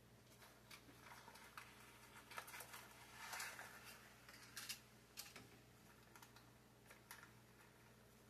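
Faint scattered light clicks and taps, with a brief rustle about three and a half seconds in, over a low steady hum: quiet handling of small kitchen items such as a muffin pan and paper cupcake liners.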